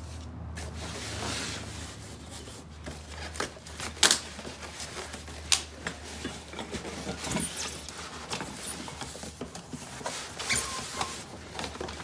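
Cardboard shipping box being opened by hand: the lid and flaps rub, scrape and rustle, with a few sharp knocks of cardboard, over a steady low hum.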